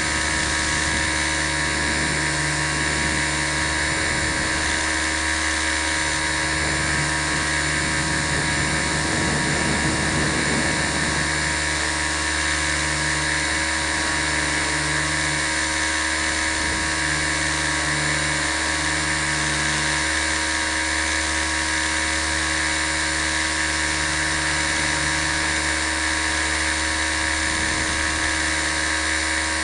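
T 250 RC helicopter's motor and rotor, picked up by its onboard camera: a steady, many-toned whine. A brief rushing swell comes about ten seconds in.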